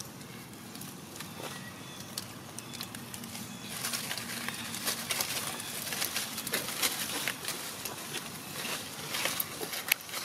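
Dry leaf litter rustling and crackling under moving macaques, a scatter of small crackles that grows busier from about four seconds in, with a few sharp crackles near the end.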